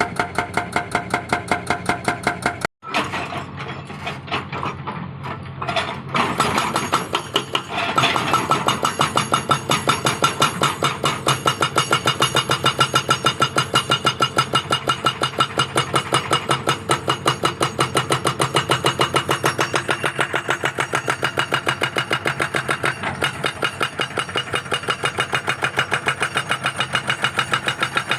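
Excavator-mounted hydraulic rock breaker hammering in a fast, even rhythm of blows over the running diesel engine. It cuts out briefly about three seconds in and gets louder about eight seconds in.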